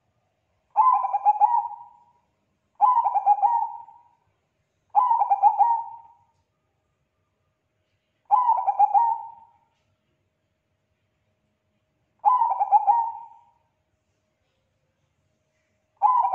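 Zebra dove of the Thai 'bangkok' song type cooing: six short rolling coo phrases, each starting sharply and trailing off over a second or so. The first three come about two seconds apart, then with longer pauses between.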